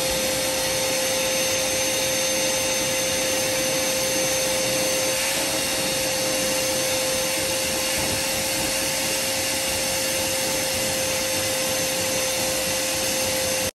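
Steady rushing motor noise with a constant whine, switching on and cutting off abruptly.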